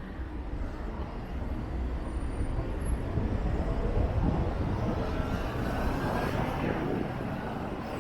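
Strong gusty wind buffeting the microphone, a low rumble over the noise of street traffic.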